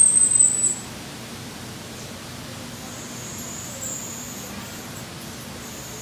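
Steady hiss of background room noise. A loud, high-pitched whine cuts off under a second in, and faint high chirps come through a couple of times later.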